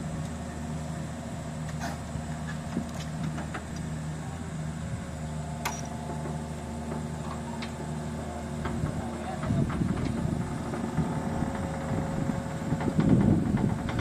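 Hitachi Zaxis 200 excavator's diesel engine running steadily at low revs, growing louder and rougher from about nine and a half seconds in, with a few sharp ticks over it.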